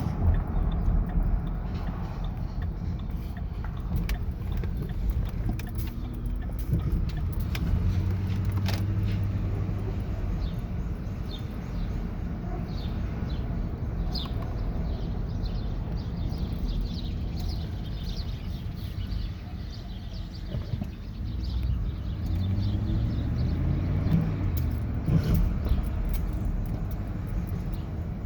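2009 Ford Expedition's 5.4-litre V8 running with a steady low rumble, its pitch rising and falling a couple of times; this is the noise that the owner is asking about, which comes along with warning lights on the dash.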